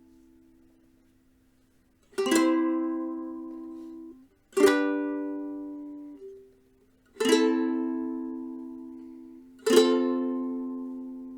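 Camwood ukulele strummed: four chords about two and a half seconds apart, each struck once and left to ring and fade. The first two are damped short just before the next strum.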